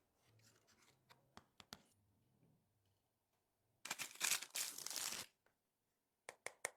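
Hand work on an iPhone during a back glass repair: faint rustling and a few small clicks, then a loud scratchy noise lasting about a second and a half that cuts off sharply, then three quick clicks.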